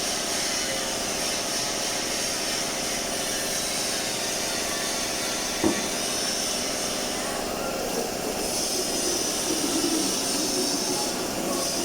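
Steady running noise of shop machinery, a hiss over a low drone, with a single sharp click about halfway through.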